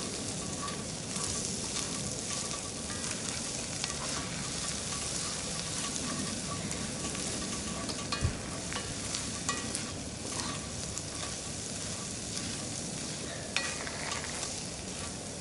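Breakfast frying in a skillet, sizzling steadily, while a spoon stirs it and scrapes and clicks against the pan, with a few sharper knocks of metal on metal.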